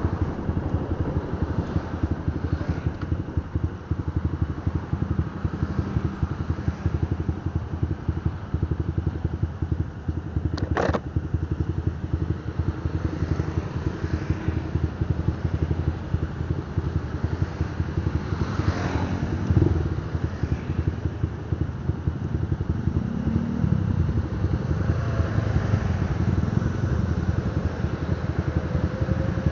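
Motorcycle riding in town traffic, its engine and a rough wind rumble on the microphone, with other motorbikes around. A sharp click comes about 11 seconds in and a louder knock about 20 seconds in, and a rising wail, the start of a siren, begins near the end.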